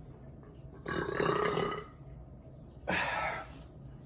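A man burping after drinking beer, twice: a long burp lasting about a second, starting a little under a second in, and a shorter one near three seconds.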